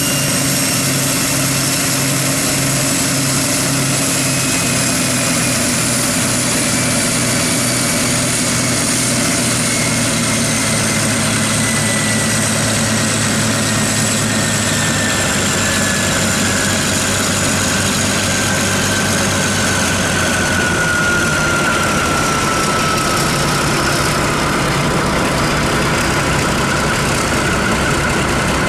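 Maybach diesel engines of the V200 033 diesel-hydraulic locomotive running on a static test, with the revs slowly dropping back toward idle. A high whine falls steadily in pitch throughout, over the deep, steady engine note.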